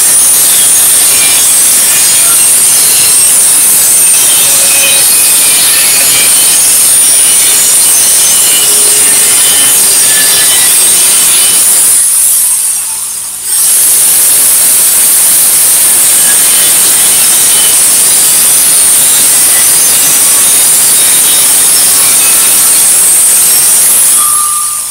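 Angle grinder's cut-off wheel cutting through the steel wall of a propane tank: a loud, steady grinding with a high whine. It lets up briefly about halfway through, then bites again, and winds down at the end.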